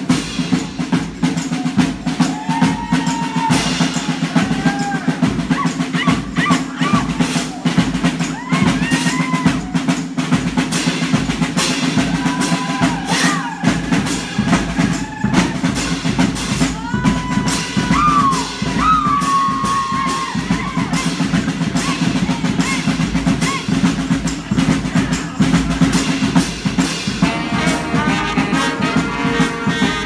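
Street brass band's drum line playing a break of snare and bass drum over a low bass line, with the horns mostly silent; the horn section comes back in near the end.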